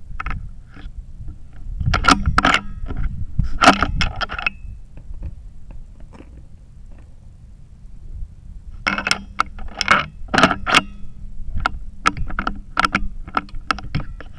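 Clusters of sharp metallic clicks and clinks, a few in quick succession, then a pause, then more, like gear being handled.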